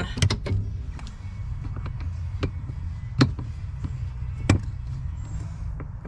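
Shift cable ends being fitted onto a Buddy Club short shifter box: a few sharp clicks and knocks of metal on plastic, the loudest about three and four and a half seconds in, over a steady low rumble.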